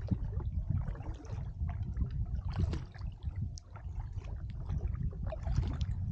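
Kayak paddle blades dipping into calm water and dripping, a few splashy strokes, over a steady low rumble of wind on the microphone.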